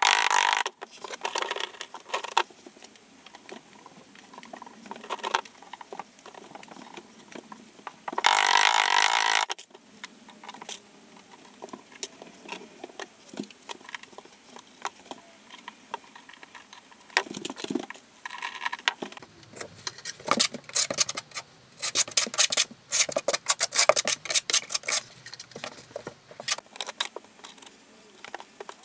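Glass mosaic tiles clicking and tapping as they are handled and pressed into place, in scattered bursts that are thickest in the second half. A loud harsh noise about eight seconds in lasts about a second and a half.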